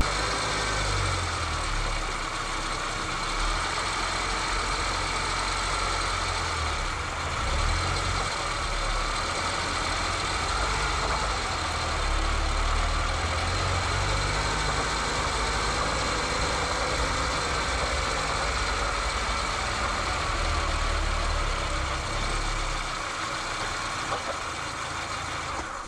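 Motor vehicle driving, a steady engine rumble mixed with road noise, which cuts off suddenly at the end.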